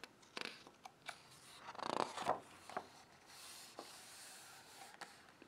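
Page of a hardcover picture book turned by hand: faint paper rustling and sliding with a few soft taps, and a louder swish about two seconds in.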